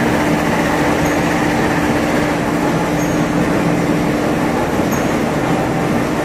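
Tyre bead wire separating machine running unloaded: its electric motor and gear reducer turn the rollers with a loud, steady hum. A faint high chirp comes about every two seconds.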